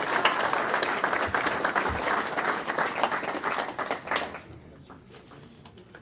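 Audience applauding, dying away about four seconds in to a few scattered claps.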